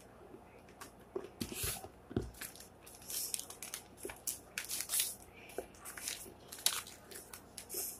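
Sheets of paper rustling and crinkling as they are folded and handled, a string of short, irregular crackles and scrapes.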